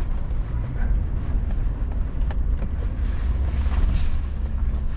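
A 4x4 driving over a rough dirt canyon trail: a steady low rumble of engine and tyres, with a few light knocks from the rough ground.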